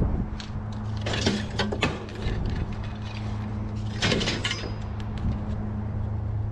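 Metal scrap clanking and clattering as pieces are pulled out and handled, in two bursts: about a second in and again around four seconds. A steady low hum runs underneath.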